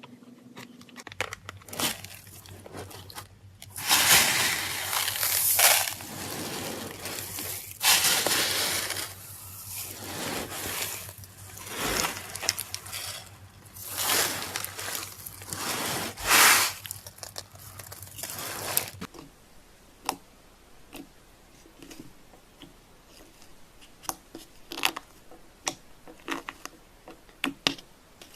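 Slime squeezed and worked by hand, crackling and crunching in long repeated bursts. About two-thirds through this gives way to sparse small clicks and pops.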